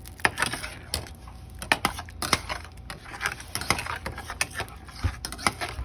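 Kitchen clatter: irregular clinks and taps of a utensil against a pot and dishes while cooking, over a steady low hum.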